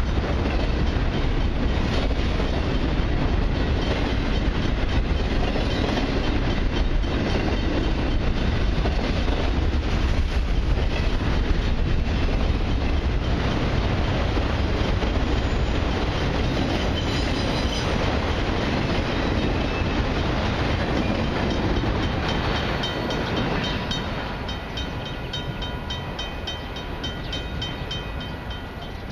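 Autorack freight cars rolling past at close range: a steady rumble with wheels clacking over the rail joints. High ringing tones come in as the train's tail passes, and the noise fades over the last few seconds.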